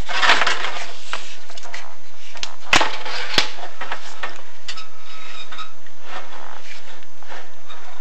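Chimney inspection camera rig being moved down a clay-tile flue: a steady scraping rustle with a few sharp knocks, one near the start and two close together a little before halfway.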